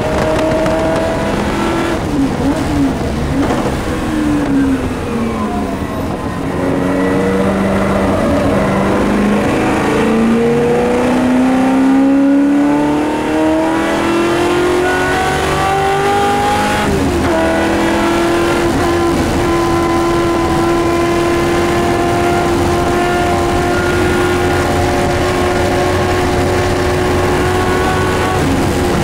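Shelby Mustang GT350R's 289 V8 at race pace, heard from inside the cockpit. The revs fall over the first few seconds, then climb in one long pull. About 17 seconds in the pitch dips briefly, then holds high and almost steady for the rest.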